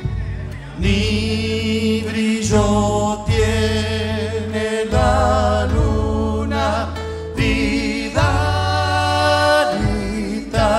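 Live Argentine folk music: several male voices singing long, held notes together over guitar and bass.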